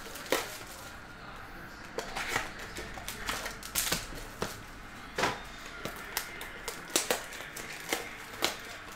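Foil trading-card pack wrappers and loose plastic wrap crinkling and clicking as card packs are handled, in irregular sharp rustles about once or twice a second.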